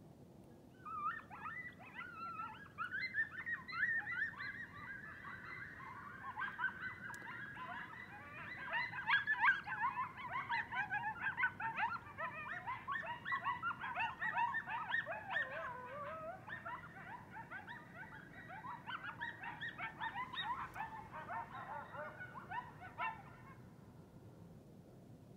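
A band of coyotes howling together: many overlapping high, quickly wavering calls. The chorus starts about a second in and breaks off abruptly shortly before the end.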